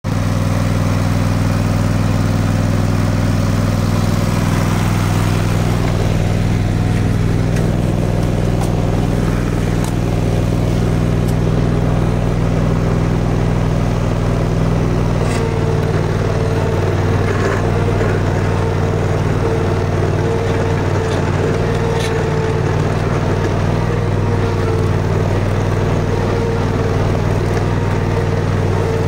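Cub Cadet Ultima ZT1 42 zero-turn mower's engine running steadily under load while the machine pushes a front-mounted snow plow blade through snow. A steady higher whine joins about halfway through, along with a few faint knocks.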